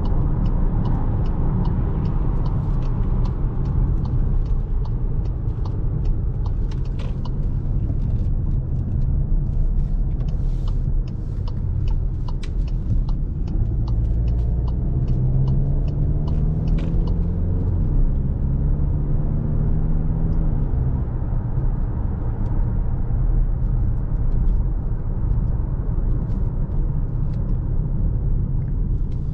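Škoda Kodiaq's 2.0 TDI four-cylinder turbodiesel and tyre rumble while driving, a steady deep drone. About halfway through, the engine note rises for a couple of seconds, then holds steady for a few seconds more. Light sharp ticks come through during the first half.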